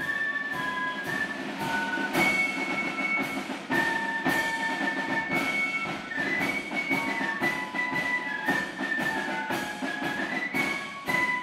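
Flute band playing a tune: a section of flutes carrying the melody in held notes over steady drum beats.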